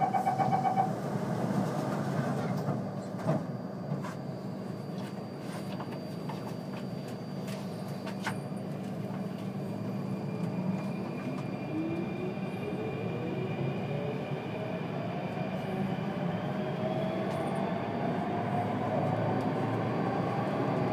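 Singapore MRT Circle Line train running through a tunnel, heard from inside: a steady rumble of wheels on rail with a few sharp clacks, and a brief beeping tone near the start. From about halfway the traction motors' whine rises slowly in pitch as the train picks up speed.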